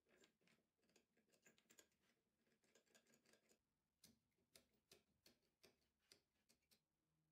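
Faint clicking and scraping as a wooden knob's threaded bolt is turned by hand into a plywood bearing block: a dense run of small clicks, then separate sharper ticks about twice a second from about four seconds in.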